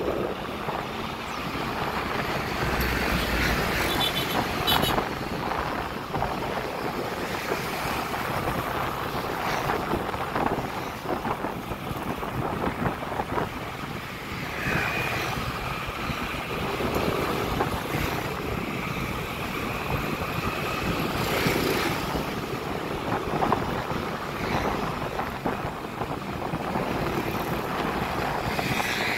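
Motor scooter riding along a busy road: a steady mix of engine and road noise, with wind on the microphone.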